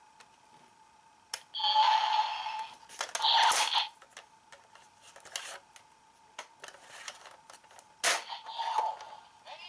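Plastic clicks from handling a Kamen Rider Ryuki Dragvisor toy gauntlet, with three short bursts of electronic sound effects from its small speaker, which sounds weak.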